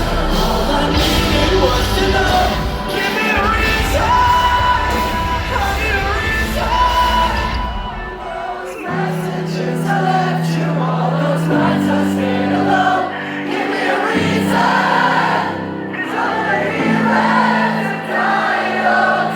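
Rock band playing live in a concert hall: the full band with drums and bass for about eight seconds, then the drums and bass drop out. Held chords changing every few seconds and singing voices without clear words remain.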